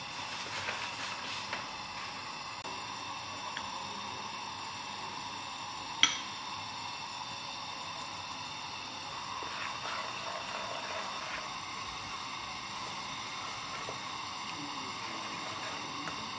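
Flour being sifted into a stainless steel pot and stirred in with a wooden spoon, soft handling noises over a steady hiss, with one sharp knock against the pot about six seconds in.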